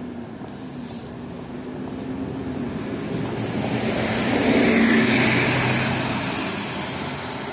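Street traffic with a motor vehicle passing close by: engine hum and tyre noise swell to a peak about five seconds in, then fade.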